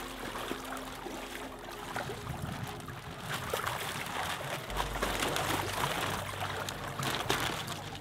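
Water splashing and sloshing in a plastic tub as big koi thrash while being handled by hand.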